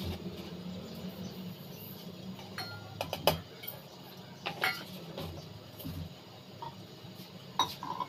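A few sharp metal clinks from a steel ladle against an aluminium saucepan of simmering milk and vermicelli, the loudest about three seconds in and one more near the end. A steady low hum lies under them.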